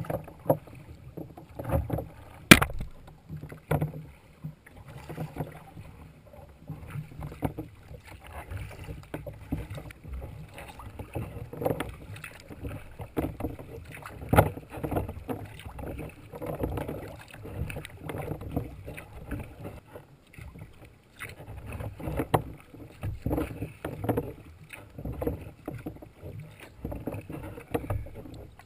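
Sea kayak paddle strokes, the blades dipping and splashing in a steady rhythm. About two and a half seconds in comes one sharp, loud clunk: the paddle hits the kayak's deck in a missed stroke after a shark knocks it.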